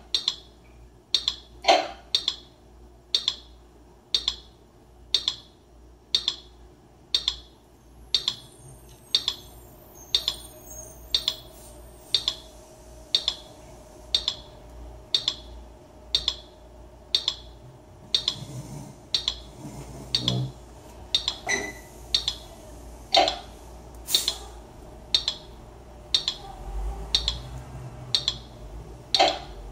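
Teenage Engineering PO-24 pocket drum machine playing a looped beat through a small portable speaker: sharp, clicky hits about twice a second. A held tone sounds for a few seconds in the middle, and a few deeper thumps come in during the second half.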